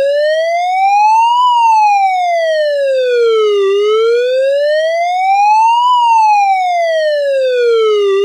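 Emergency-vehicle siren sound effect in a slow wail. A single clean tone glides smoothly up and then back down, each rise or fall taking a little over two seconds, for about two full cycles.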